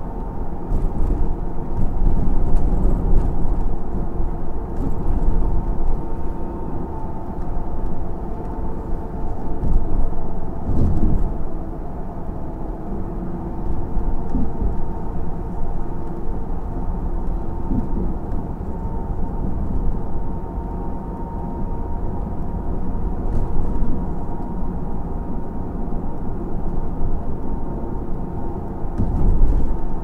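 Ride noise inside a moving car: a steady low rumble of tyres and running gear with a faint steady hum, and louder jolts over bumps in the road, one about eleven seconds in and another near the end.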